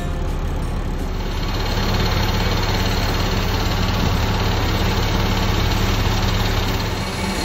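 A steady engine drone under the hiss of a hose's water jet spraying down a military tanker truck.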